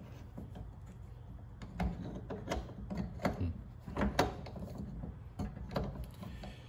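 Irregular light metal clicks and knocks of an AXA quick-change tool post and its mounting hardware being handled, turned and adjusted on a mini lathe.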